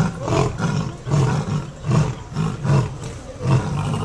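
Male Asiatic lion roaring: about five short, deep roars in steady succession, each a little under a second apart.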